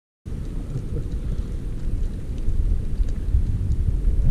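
Wind buffeting the microphone on an open boat: a low, gusty rumble that cuts in suddenly a fraction of a second in.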